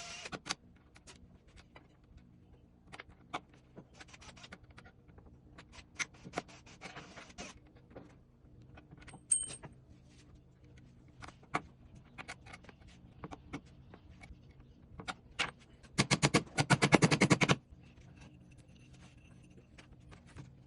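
Scattered clicks, taps and knocks of hand work on wood with wire and nails. Near the end comes a loud rattling run of rapid strokes lasting about a second and a half.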